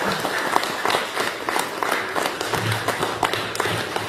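Audience applause, many hands clapping steadily.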